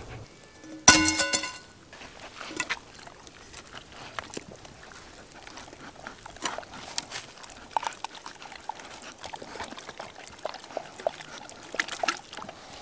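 Belgian Malinois eating canned wet dog food from a metal pan: wet chewing and smacking, with chunks of food sliding out of a tin can into the pan. About a second in comes a short, loud ringing tone, the loudest sound.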